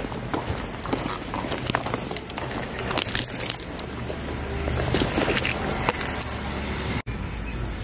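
Footsteps on paving with the rustle and knocks of a carried gym bag and a hand-held camera, a string of small clicks and knocks over a low rumble.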